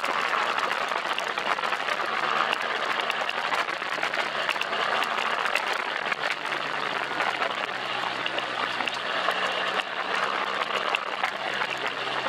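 BMW R1200GS boxer-twin engine running at a steady speed, its note faint under a dense rushing noise full of small crackles: wind and tyre noise from riding off-road.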